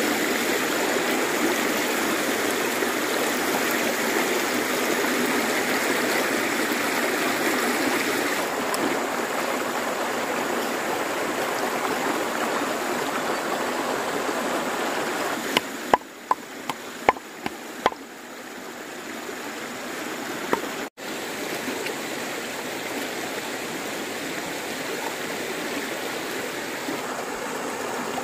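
Shallow stream running over rocks, a steady rush of water. About halfway through come a handful of sharp knocks, after which the rushing is quieter.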